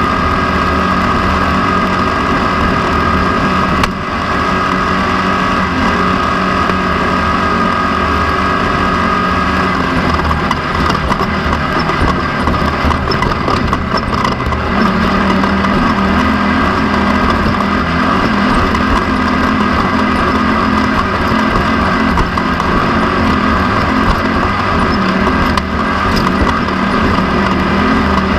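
Off-road race vehicle's engine running hard under way, heard from an onboard camera; its pitch drops about ten seconds in and climbs again a few seconds later.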